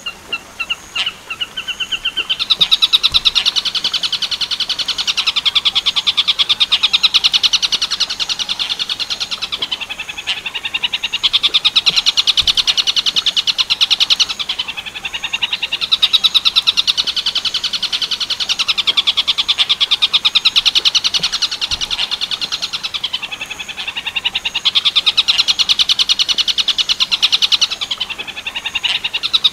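Tengkek buto bird song: long, fast rattling trills of sharp repeated notes, in bouts of several seconds separated by brief breaks.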